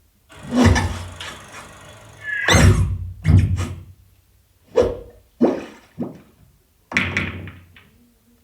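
Film soundtrack sound effects played over cinema speakers: a series of about seven heavy hits and whooshes, each dying away, with a short rising sweep about two and a half seconds in.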